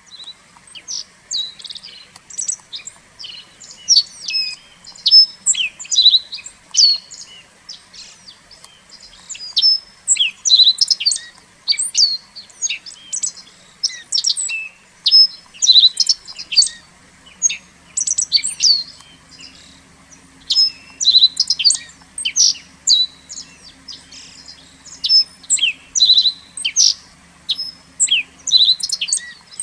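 Small songbirds chirping and calling, many short high calls overlapping one after another. A faint low hum joins in about halfway through.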